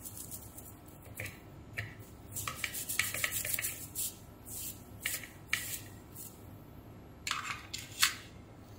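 A brush scrubbing the surface of a printed circuit board in a run of quick, scratchy strokes, cleaning the solder pads. Near the end there is a sharp click as tweezers set a small surface-mount part down on the board.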